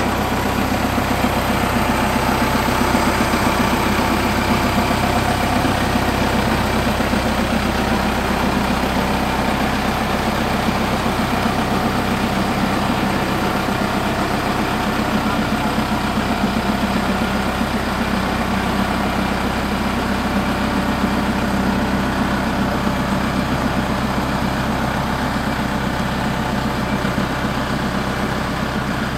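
A vehicle running steadily: a continuous, even mechanical rumble with no breaks.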